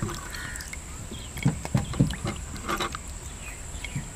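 Wet cherries being handled in a clay bowl: a few soft knocks and wet clicks. Crickets keep up a steady high chirring behind.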